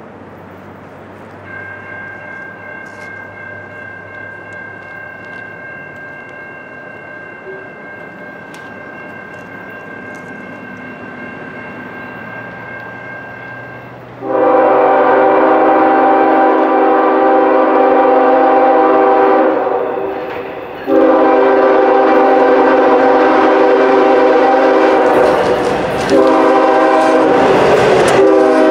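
Norfolk Southern freight locomotive's horn, first a faint steady tone and then, about halfway through, blowing loud in long blasts as the train comes into view, with one short break two-thirds of the way in. Near the end the rumble and rush of the locomotive and freight cars passing close joins the horn.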